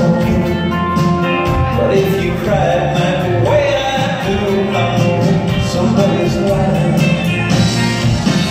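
Live rock band with guitars and drums playing a mid-tempo song, heard from the audience in a concert hall.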